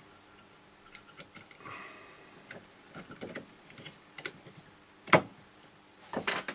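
Small plastic clicks and taps as a Nespresso Aeroccino milk frother's circuit board and plastic carrier are worked into its stainless steel base, with a sharper click about five seconds in and a couple more near the end.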